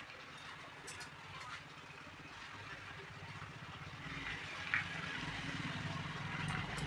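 A motor vehicle's engine running, its low hum growing louder over the last few seconds, with a few faint clicks.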